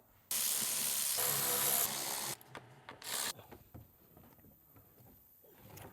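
Power driver spinning, probably backing out the undercover fasteners with a Torx bit or 10 mm socket: one steady run of about two seconds, then a short second burst about three seconds in, followed by faint clicks.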